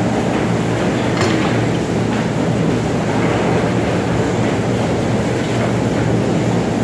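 Automatic tunnel car wash machinery running: a steady low hum under an even mechanical rush, with a few faint knocks.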